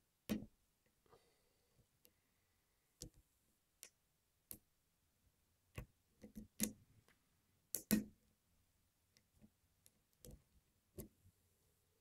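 Pin-tumbler lock being single-pin picked with a short hook under a tension wrench: irregular sharp clicks and taps from the pick and pins, the loudest about six and a half and eight seconds in.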